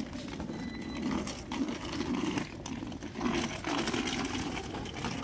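City street ambience: indistinct voices of passersby and general bustle, with irregular low murmuring and occasional light clicks.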